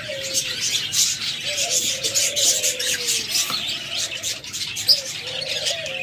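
A room of caged birds: many small birds chirping in a continuous chorus, with doves cooing in low, drawn-out notes that slide downward in pitch.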